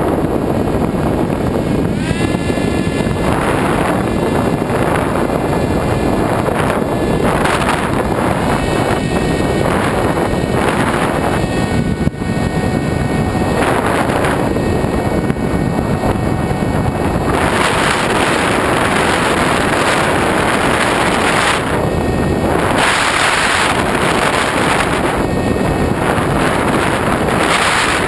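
Airflow rushing over the onboard camera's microphone on a foam RC FPV glider in flight. A motor whine comes and goes over the first two-thirds, rising in pitch about two seconds in; after that the wind rush alone continues.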